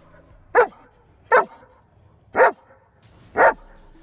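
German Shepherd barking on the "speak" command: four single barks about a second apart, each dropping in pitch.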